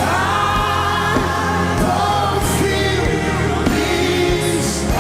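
Live gospel worship music: a band with steady bass and sustained voices singing long held notes, with two cymbal swells.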